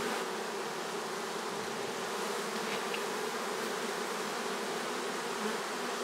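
Honey bee swarm humming steadily: the massed buzz of thousands of bees clustered on and flying around a wall.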